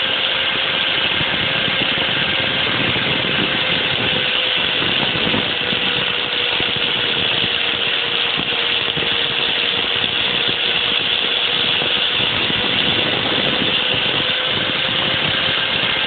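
A 4-inch angle grinder with a thin cutoff wheel runs at a steady speed, cutting notches into the hub's lid. It makes a constant whine and grinding noise that does not change in pitch or level.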